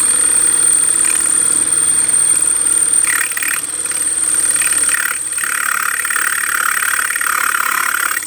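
Electric drill running steadily with a high whine, its bit grinding against a planter, the grinding changing in pitch a few times; it cuts off suddenly at the end.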